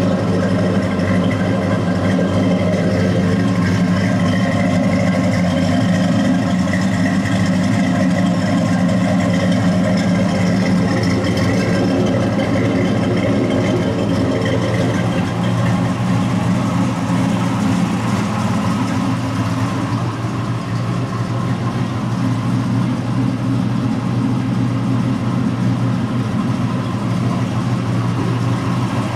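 A 1957 Chevrolet pickup's engine idling steadily.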